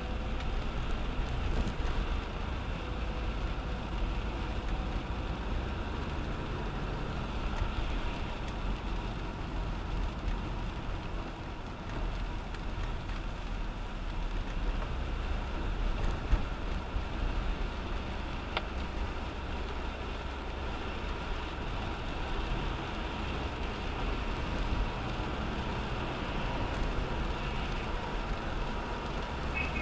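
Steady road noise of a car driving along a city street: a low rumble with tyre hiss.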